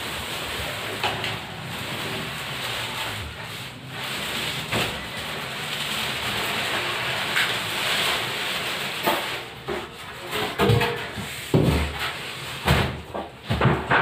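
Large cardboard refrigerator carton being slid up and off a fridge, cardboard scraping and rustling against the plastic wrap. Several thumps near the end as the empty box is set down.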